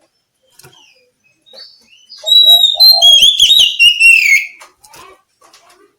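Oriental magpie-robin (kacer) singing one loud phrase of quick, varied whistled notes with sliding sweeps, starting about two seconds in and lasting about two and a half seconds.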